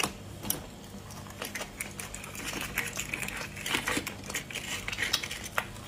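Shell of a fertilized chicken egg cracking and being picked off with fingertips: small irregular crackles and clicks.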